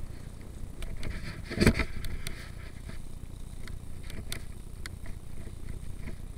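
Mountain bike rolling fast over a dirt trail: a steady low rumble of tyres and wind with scattered sharp clicks and rattles, and one loud knock about a second and a half in.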